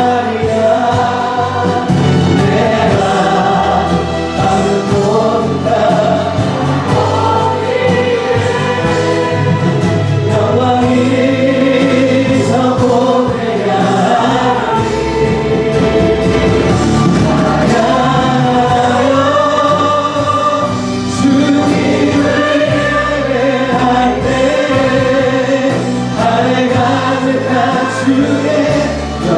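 Church choir singing a gospel worship song, the voices holding long notes that rise and fall, over a steady low accompaniment.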